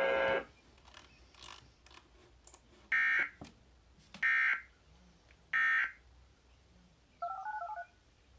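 Emergency Alert System end-of-message signal: three short bursts of buzzy digital data tones, evenly spaced about 1.3 seconds apart, marking the end of the alert. Near the end comes a quick string of touch-tone (DTMF) beeps. The alert audio before it cuts off about half a second in.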